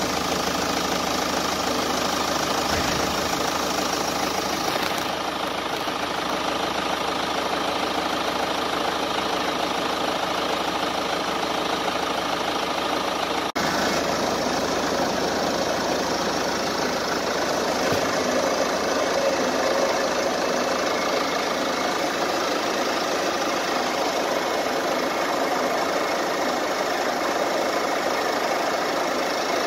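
Ford Mondeo Mk5 engine idling steadily, heard from beneath the car on a lift. It is left running for the automatic transmission fluid level check.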